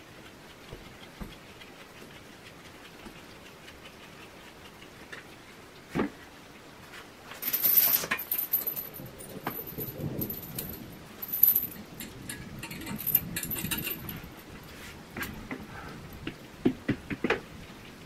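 Dog-grooming sounds: a hand tool scratching through a West Highland White Terrier's coat, with a sharp click about six seconds in, then metallic jingling and clinking for several seconds, and a few more clicks near the end.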